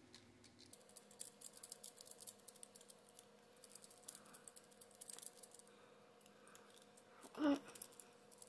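Faint, irregular clicks and scrapes of a screwdriver working on a small HO-scale model locomotive's chassis and truck parts, with a faint steady hum joining about a second in.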